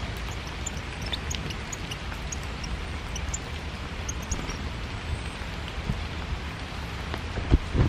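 Steady rain, with a low rumble on the microphone. Many short, high, thin bird calls come through in the first half, and there is a sharp thump near the end.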